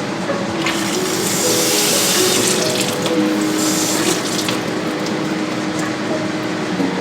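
Water running from a tap for about four seconds, starting shortly after the beginning and then stopping.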